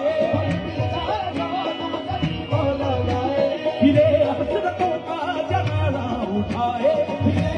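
Qawwali music: a lead vocalist sings a wavering, ornamented melody over harmoniums and a steady hand-drum beat.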